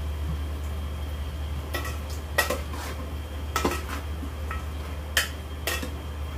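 A metal spoon stirring in an aluminium cooking pot, scraping and clinking against its side. The sharp clinks come irregularly from about two seconds in, over a steady low hum.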